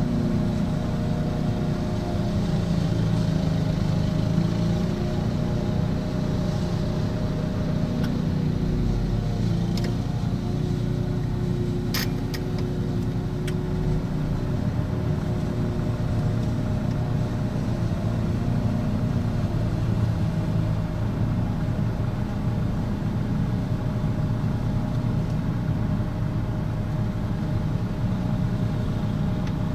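An engine running at a steady speed, with a few sharp ticks around the middle.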